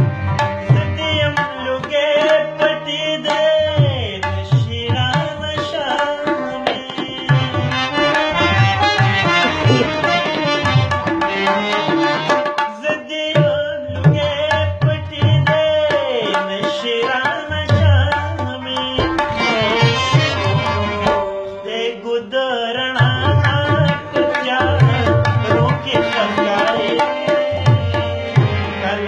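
Tabla played in a steady rhythm, with a few short breaks, under a male voice singing a Pashto ghazal, with a held melodic accompaniment.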